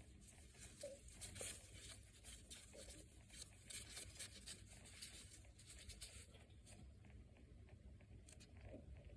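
Near silence: faint room tone with scattered soft ticks and rustles.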